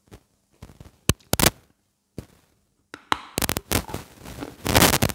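A bite of hard chalk, dipped in wet clay paste, crunched and chewed close to a clip-on microphone: a few sharp snaps about a second in, then dense crunching from about three seconds on.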